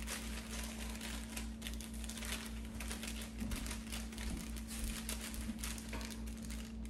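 Thin plastic cake-mix bag crinkling irregularly as it is shaken and emptied into a stainless steel mixing bowl, over a steady low hum.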